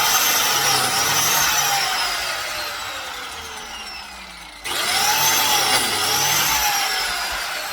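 Biscuit joiner cutting slots in timber, twice. Each time the motor whines up to speed, its pitch dips briefly as the blade plunges into the wood, then it winds down with a long falling whine. The second cut starts a little over four and a half seconds in.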